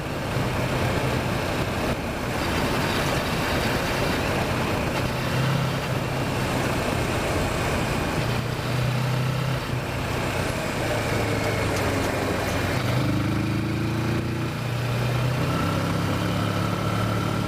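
Kawasaki Versys motorcycle engine running steadily at road speed, held in one gear, with wind rushing past; the engine note rises briefly a little after halfway.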